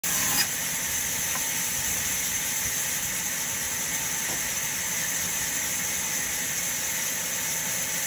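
Large vertical band saw running steadily with an even, high hiss, with one sharp click just after the start.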